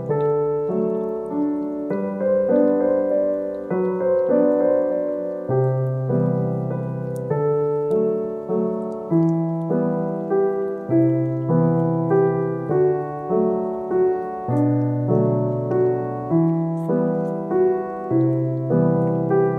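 Background piano music with a slow, even pulse, notes and chords changing about every second.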